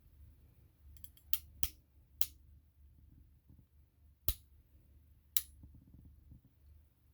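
Sharp snips of wires being cut: five crisp cuts spread over a few seconds, with a few faint ticks just before the first, as the four conductors of a flat satin telephone cable are trimmed back to fit an RJ11 crimp plug.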